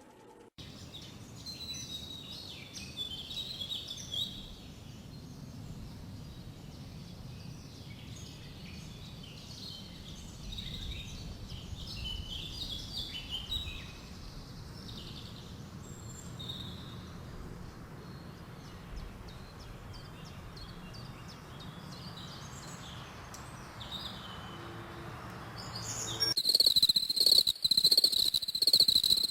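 Several birds chirping and singing in short, varied phrases over a steady low rumble of outdoor background noise. About three seconds before the end it cuts abruptly to loud, pulsing insect chirring, typical of crickets.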